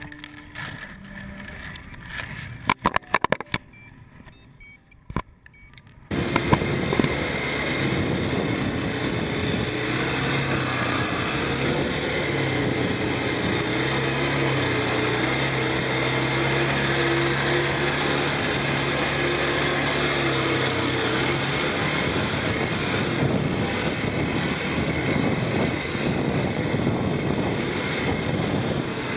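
Quad bike (ATV) engines running, a continuous engine drone that shifts up and down in pitch with the throttle, mixed with heavy rumble and noise on the camera microphone. It cuts in suddenly about six seconds in, after a few quieter seconds with scattered sharp clicks.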